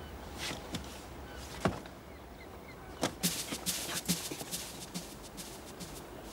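Boots on a wet wooden ship's deck: one sharp knock, then from about three seconds in a quick, uneven run of footsteps and knocks.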